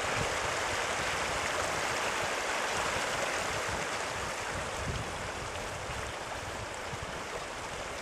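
Shallow river rushing over rocks, a steady rush of running water that eases slightly in the second half.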